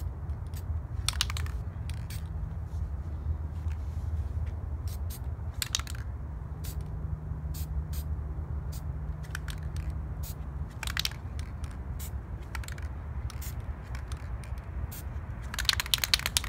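Aerosol spray-paint can being shaken, its mixing ball rattling in short bursts of rapid clicks four times, loudest near the end. A steady low rumble runs underneath.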